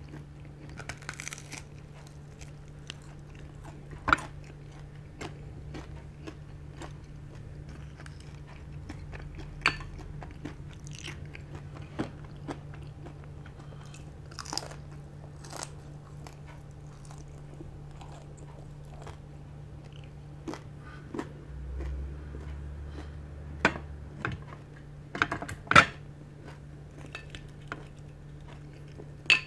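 Close-miked chewing and biting of crispy pata, deep-fried pork knuckle, with sharp crunches of the fried skin scattered through and a few of the loudest near the end.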